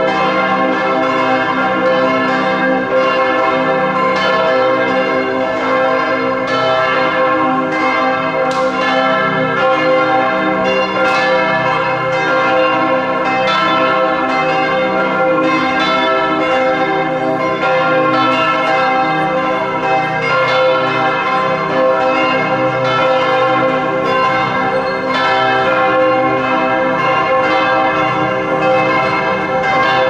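Church bells of Bern's Heiliggeistkirche ringing together in a full peal, their strikes overlapping into a steady, unbroken wash of ringing tones.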